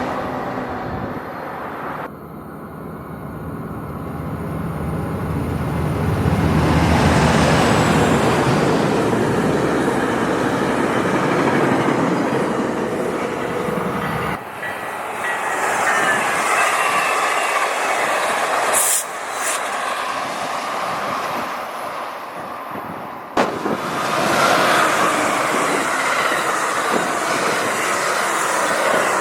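Passenger trains hauled by Siemens Charger diesel-electric locomotives running past trackside, with engine noise and wheels rumbling on the rails. Three separate pass-bys follow one another, with abrupt cuts between them.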